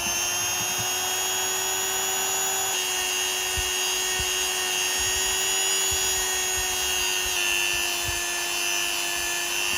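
Small power tool's electric motor running steadily with a constant whine, its pitch shifting slightly a couple of times, with a few faint knocks.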